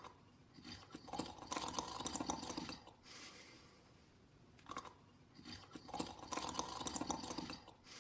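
Slow snoring, two breaths about five seconds apart, each a brief catch followed by a crackly, noisy breath lasting about two seconds.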